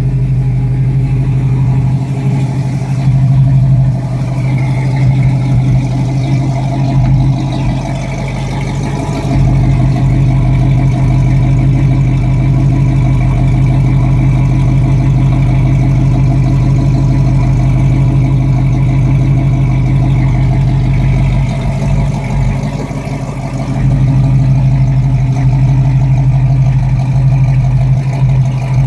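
1967 Pontiac Firebird's 326 V8 idling steadily, heard largely from the tailpipe.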